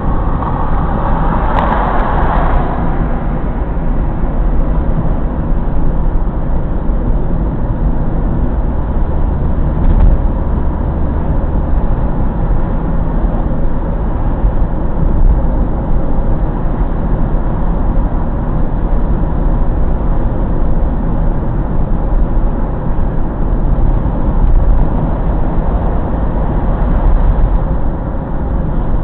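Steady road noise inside a moving car: a continuous low rumble of tyres and engine, with a brief louder hiss and a click about two seconds in.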